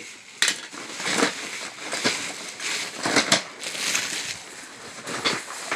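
Items being rummaged through and moved around in a cardboard box: irregular rustling and crinkling with scattered knocks.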